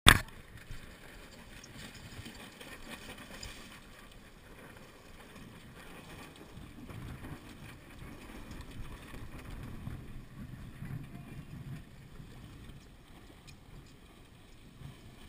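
Wind noise on a GoPro's microphone and water washing against a boat's hull on choppy water in a 10–20 knot breeze, uneven and gusty. A sharp click comes at the very start.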